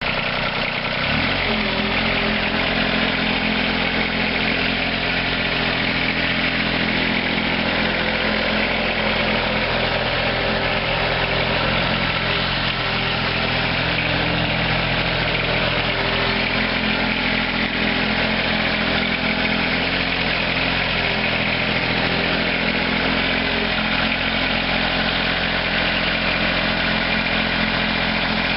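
An engine idling steadily, cutting in suddenly at the start.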